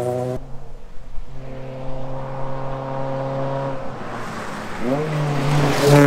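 2002 Ford Focus rally car at full throttle on a gravel stage, its engine holding a steady high note, briefly easing about four seconds in, then revving up again. Gravel and tyre noise swells as it flies past close by near the end, the loudest moment.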